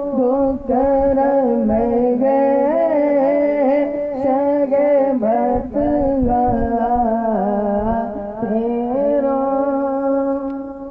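A man singing a devotional naat in praise of the Prophet, unaccompanied, through a microphone and loudspeakers. The singing runs in ornamented, gliding melodic lines and ends on a long held note that fades out near the end.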